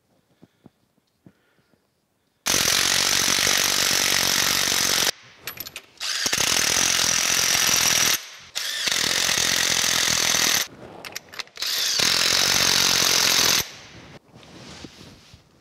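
Cordless impact gun running up the bolts that mount a gear shaft's bearings under a metal planer bed. It hammers in four bursts of two to three seconds each, with short pauses between them. A few light handling clicks come before the first burst.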